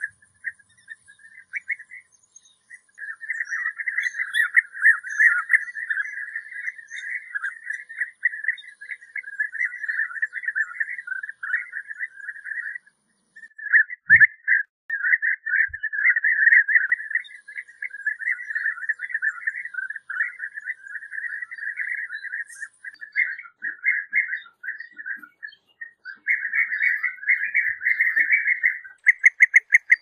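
European bee-eater calling in rapid, trilling notes, almost without a break, with a short pause near the start and another about halfway, and loudest near the end.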